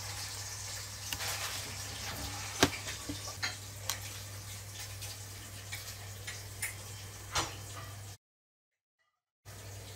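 Scattered small clicks and taps of tiny wheels and an axle pin being handled and fitted on a diecast toy car, the loudest a sharp click a few seconds in, over a steady low hum and hiss. The sound cuts out to silence for about a second near the end.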